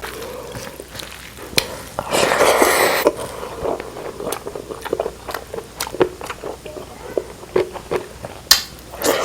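Close-miked chewing and biting of food, with many short wet mouth clicks and smacks. A louder noisy burst of about a second comes roughly two seconds in.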